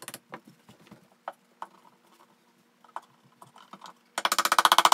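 Small hammer tapping wooden dowels into a Kallax shelf panel: scattered light taps, then from about four seconds in a loud, rapid run of evenly spaced taps.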